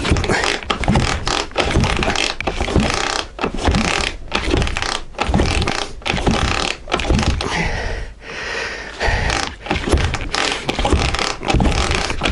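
Dnepr K-650 flat-twin motorcycle engine being cranked over by hand again and again for a compression test: repeated mechanical strokes, about two a second. The gauge on this cylinder builds to only about 3.5 atmospheres, low for this engine, which normally gives 5–6.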